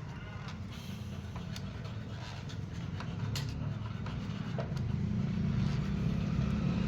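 A motor vehicle engine running, growing steadily louder, with a few light clicks of tools on metal.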